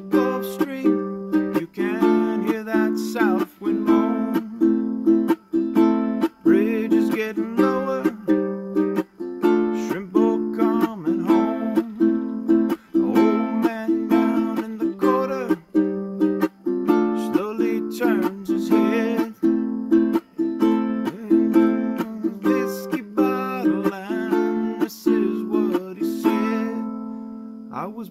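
Solo ukulele instrumental break: quick strummed chords mixed with a picked melody line, ending on a held chord that rings out and fades near the end.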